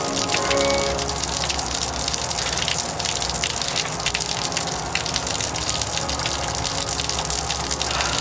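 Steady heavy rain falling: a dense hiss of water with fine, fast patter.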